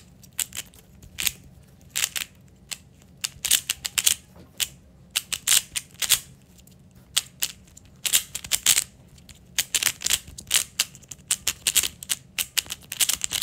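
A 3x3 speed cube being turned fast during a timed solve: bursts of quick, sharp plastic clicks and clacks, broken by short pauses between bursts.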